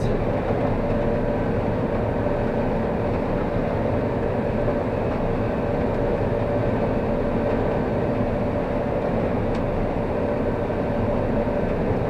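Combine harvester harvesting corn, heard from inside its cab: a steady drone of engine and threshing machinery with a constant hum, unchanging while it works along the rows under load.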